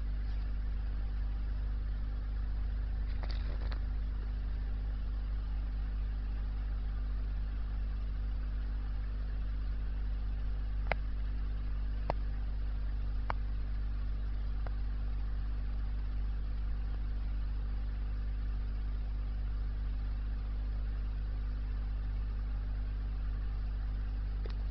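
Steady low electric hum of running aquarium equipment, with four faint sharp clicks a little past the middle.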